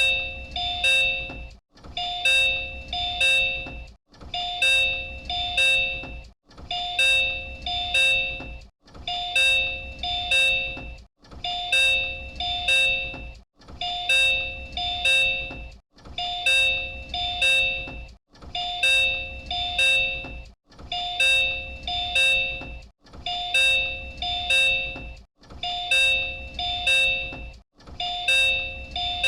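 Disney Resort Line Type 10 monorail door chime, a two-tone high-then-low chime sounded twice (the same chime JR Central trains use), repeating over and over about every two and a half seconds with a short break between repeats.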